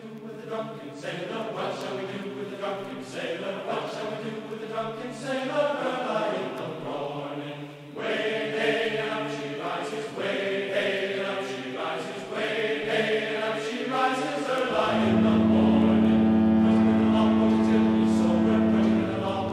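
Background choral music, voices singing chords that change every second or so. About fifteen seconds in, a loud, steady low tone comes in and holds for about four seconds.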